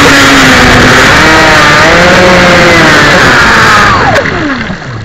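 Electric brushless motor and propeller drive of an RC model powerboat, heard from onboard: a loud whine over a steady hiss that dips and rises in pitch with the throttle. About four seconds in it falls steeply in pitch and fades as the boat slows.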